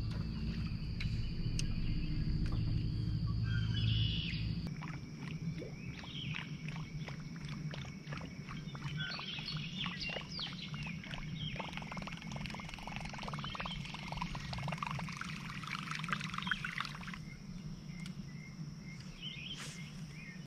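Birds calling and chirping, thickest between about five and seventeen seconds in, over a steady low hum and a faint steady high tone. The hum is louder for the first few seconds.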